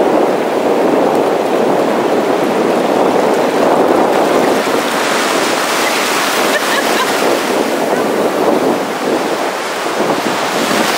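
Ocean surf washing in over the shallows: a steady rush of breaking waves and foam, with wind on the microphone.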